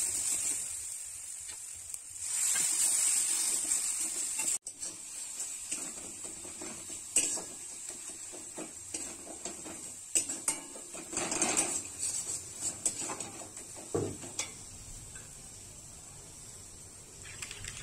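A spice-and-tomato masala sizzling as it is stir-fried in a metal kadai, with a metal spatula scraping and tapping against the pan. The sizzle is strongest in the first few seconds, then fades to scattered scrapes and taps.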